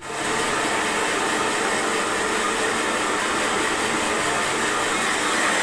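Handheld hair dryer blowing hot air onto a man's hair, an even rushing hiss that comes on suddenly and runs steadily.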